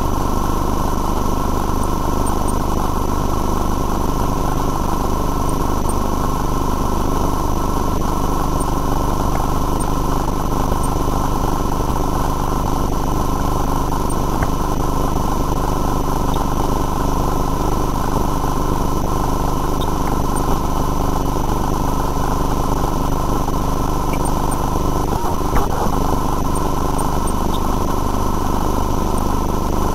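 Steady machine hum with a constant whine, unchanging over the whole stretch, and a faint click about 25 seconds in.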